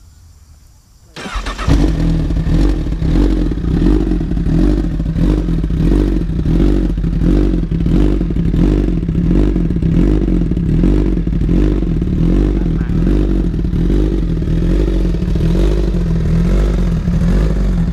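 A Honda CBR1000RR's 999 cc liquid-cooled inline-four, fitted with a Yoshimura exhaust, fires up about a second in and settles into a steady idle.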